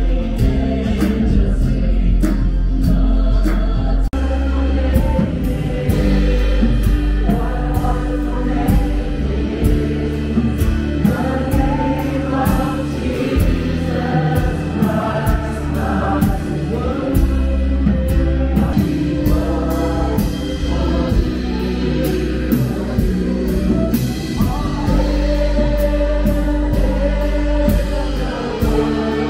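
Church worship band performing a Christian worship song: singers over keyboard, deep held bass notes and a steady drum beat.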